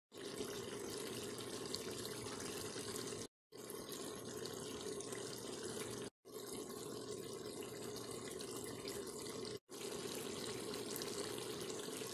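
Pot of curried eggplant simmering on the stove: a faint, steady bubbling hiss. It cuts off briefly three times.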